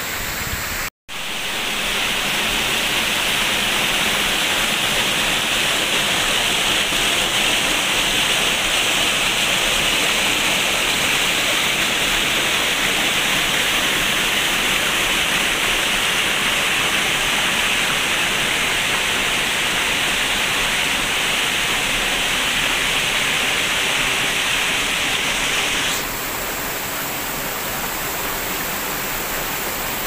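Steady rushing of water from a waterfall. After a brief cut-out about a second in, a closer, louder, hissier rush of shallow water tumbling over stones, which gives way to the more distant falls again near the end.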